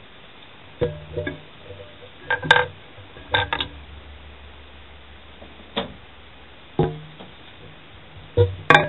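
Light, separate clicks and clinks of fly-tying tools against the vice and hook while the thread head is finished off, some in quick pairs, with a busier run near the end.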